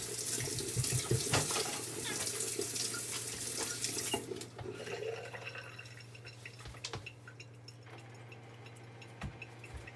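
Water running from a tap, run until it warms up, shut off about four seconds in; a few light clicks and knocks follow.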